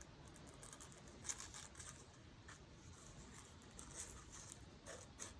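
Faint crisp scratches and ticks of a freshly sharpened Victorinox paring knife cutting during a sharpness test, a few louder strokes about a second in and again near the end.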